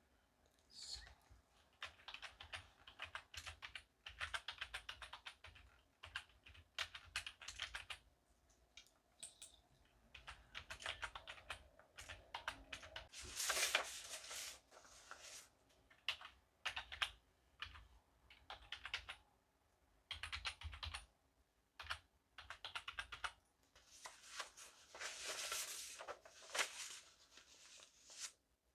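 Typing on a computer keyboard, in runs of rapid keystrokes broken by short pauses.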